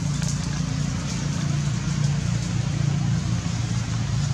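A steady low hum, like a motor running, with a few faint clicks over it.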